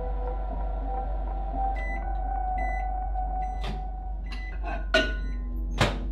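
Microwave oven running with a steady hum and giving short beeps as its timer runs out, then sharp clicks and knocks as its door is opened, the loudest near the end.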